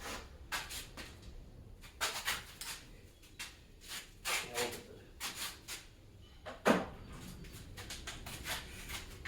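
Handling noise from tools and engine parts: scattered light knocks and rubbing, with one sharper knock about two-thirds of the way through.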